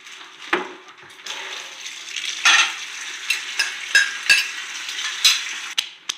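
Bowls and plates being cleared, clinking against each other with sharp knocks, then rinsed under running tap water that makes a steady hiss.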